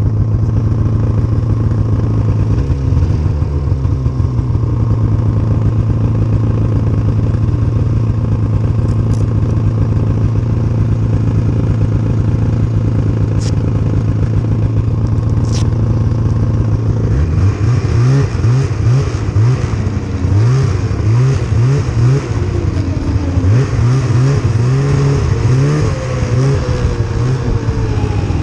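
Snowmobile engine running at a steady pitch under way, then, a bit past halfway, revving up and down over and over in quick repeated sweeps.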